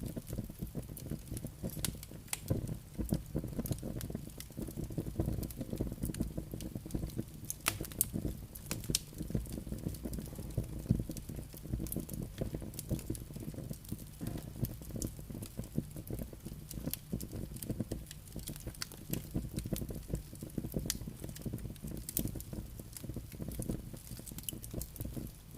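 Wood campfire crackling: dense, irregular sharp pops and snaps over a low, steady rumble.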